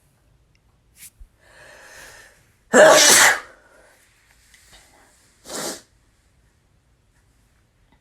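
A man sneezing: a breathy build-up, then one loud wet sneeze about three seconds in, followed by a shorter breathy burst a couple of seconds later.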